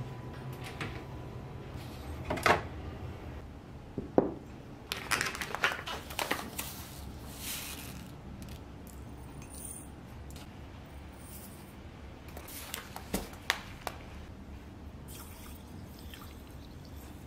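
Kitchen handling sounds: sharp clicks and knocks from a cabinet door and a ceramic mug being set down, about two and four seconds in. Then a burst of rustling and pattering from a plastic bag of chia seeds being poured, and milk poured into the mug near the end.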